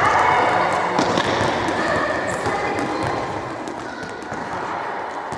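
Several handballs bouncing on a sports hall floor in irregular, overlapping bounces, with children's voices mixed in.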